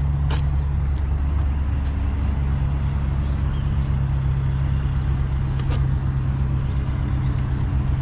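Pickup truck engine idling, a steady low hum.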